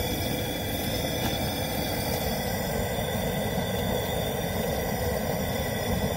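Gas burner running steadily under a large aluminium boil pot, with the seasoned water boiling hard as a basket of crawfish is lowered in.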